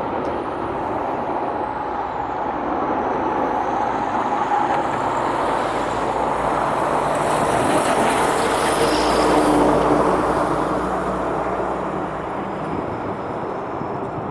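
Jet airliner engines running, a broad roar with a high whine that swells to its loudest about ten seconds in and then eases off as the aircraft moves past.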